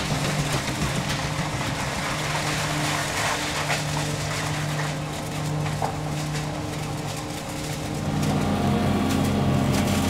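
Widontec MC3 self-propelled trike vacuum cleaner running: a steady engine drone over a broad rushing noise, with a few light clicks. It grows louder about eight seconds in.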